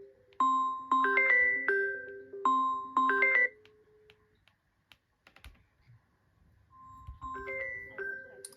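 Smartphone ringtone: a short chiming melody of bell-like notes plays, stops for about three seconds, then starts again about seven seconds in, softer at first.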